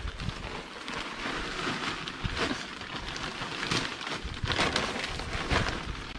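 Plastic bags of small decorative garden gravel being handled: crinkling plastic and the stones inside crunching and rattling, with a few sharper rustles from about three and a half seconds in.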